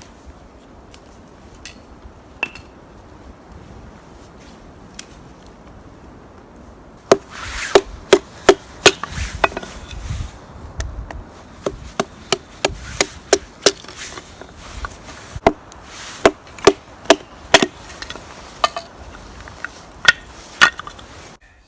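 Wood being chopped: a run of sharp, repeated strikes, about two or three a second with short pauses, starting about seven seconds in, after a few scattered knocks.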